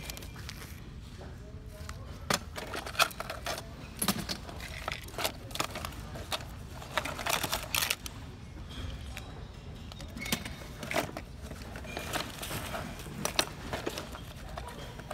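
Fishing tackle rattling and clicking in a metal tackle box as it is rummaged through by hand, small plastic boxes and packets knocking against one another and the box, in quick irregular clicks.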